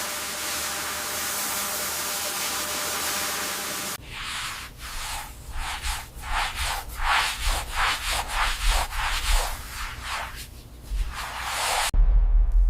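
A steady hiss, then from about four seconds in, rhythmic back-and-forth sanding strokes on a hard surface at about two to three strokes a second. Near the end it cuts suddenly to a loud low rumble.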